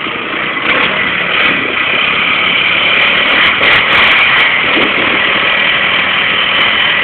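Suzuki Quadrunner ATV engine running loud and steady at an even speed, with a few brief clicks near the middle.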